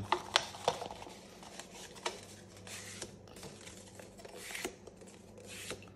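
Thin A4 copier paper rustling and crackling as it is handled and creased into concertina folds, with several sharp crinkles of the paper and short stretches of rustle.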